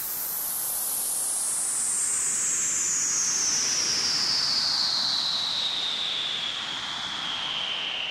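Steady hiss with a whistling tone that glides slowly and smoothly down in pitch: a synthesized white-noise sweep.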